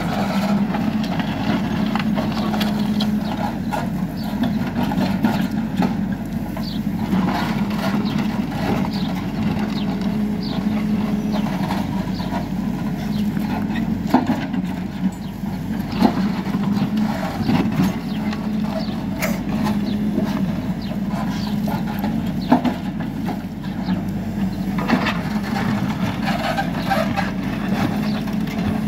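Hidromek backhoe loader's diesel engine running steadily under hydraulic load while the backhoe digs a trench, with scattered knocks and clatters of the bucket and stones in the soil.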